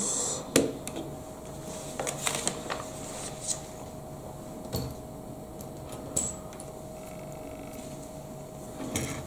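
Plastic Lego bricks clicking and tapping as they are handled and pressed onto the model, in scattered single clicks a second or so apart, over a faint steady hum.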